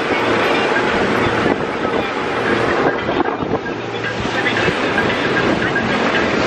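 Wind buffeting the microphone on a moving pontoon boat, over the steady drone of its motor and the rush of water along the hull.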